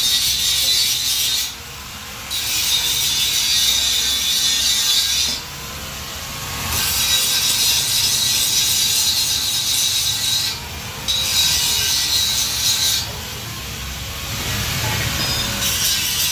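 A power tool working steel, giving a harsh abrasive hiss in four spells of a few seconds each, with short breaks between them.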